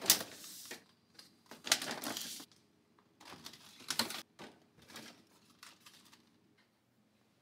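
Groceries being put away in an open refrigerator: plastic produce containers and packaging clatter and rustle as they are set onto the shelves. This comes in three main bursts, the first the loudest, then dies down to a few small knocks near the end.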